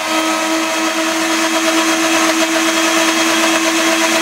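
Countertop blender running at a steady speed, its motor holding one even whine as it purées peach pieces and ice cubes into a smooth drink.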